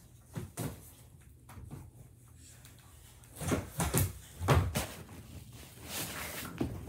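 Scattered thumps and knocks of a child moving about on a floor and bumping furniture: a few faint ones early, then a louder cluster from about three and a half to five seconds in, and another just before the end.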